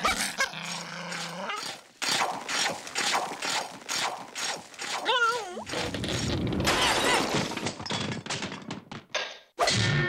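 Cartoon slapstick sound effects: a long run of quick crashes, thuds and shattering, as of floor tiles being smashed, with a short wavering squeal about five seconds in.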